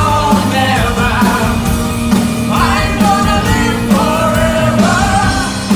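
Rock music: a full band with drums and bass keeping a steady beat under a wordless melody line.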